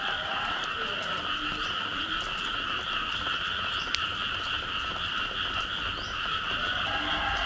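Dense chorus of frogs calling after rain: a steady, massed high trilling with scattered lower croaks, and a single sharp click about four seconds in.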